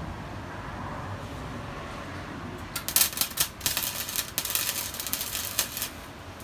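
Flux-core MIG welding arc (Sealey Mighty MIG100) crackling and spitting for about three seconds, starting about three seconds in: a short tack weld. Before it there is only a steady low background noise.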